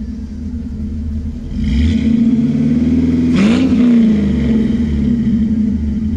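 5.3 LS V8 running through a 3-inch dual exhaust with mid-length headers, an X-pipe, resonators and Flowmaster Super 10 mufflers, the pipes turned down ahead of the rear tires; a steady, deep idle. About three and a half seconds in the engine is blipped once, its pitch rising and falling back.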